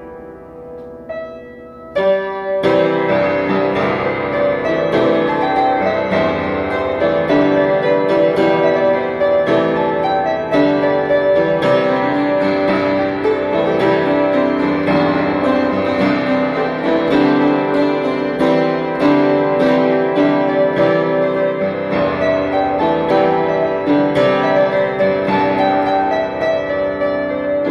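Piano music: a few soft notes, then about two seconds in the piece comes in loudly with full chords and continues steadily.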